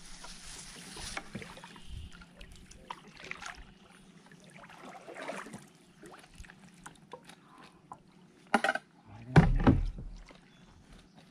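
A splash of water, then scattered clicks and knocks of gear against the plastic hull of a fishing kayak, with two loud knocks close together near the end.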